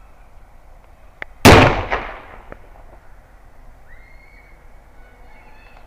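A Works bomb (a plastic bottle of The Works toilet-bowl cleaner sealed to react until the gas pressure splits it) bursting with one loud bang about a second and a half in. The bang dies away over about half a second, with a smaller crack just after it.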